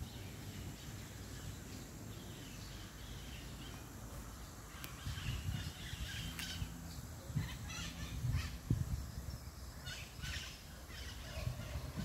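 Wild birds chirping and calling faintly among the trees, short scattered calls that become more frequent about halfway through, over a steady low background rumble.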